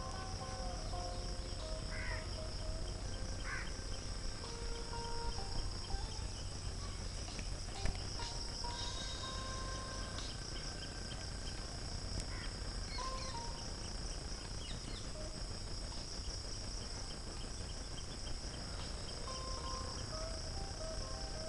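Continuous high-pitched chirring of insects, with a steady low rumble underneath and a few brief higher calls and short held tones over it.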